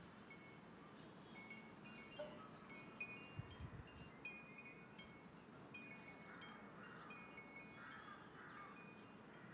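Faint chimes ringing in scattered high notes at a few different pitches, with a couple of soft low bumps about three seconds in.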